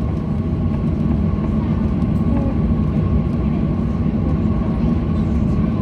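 Steady drone inside the cabin of a Boeing 737-800 on the ground, with a thin steady whine over it.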